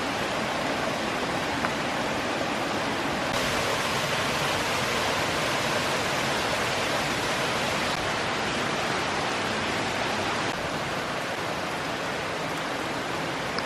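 Brook water rushing and bubbling over rocks, a steady even rush that grows a little louder about three seconds in and eases off again about ten seconds in.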